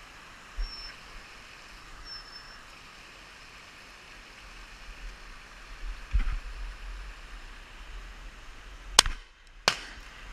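Two loud shotgun shots about two-thirds of a second apart near the end, the first the louder. Earlier there is steady outdoor background with a couple of low thumps.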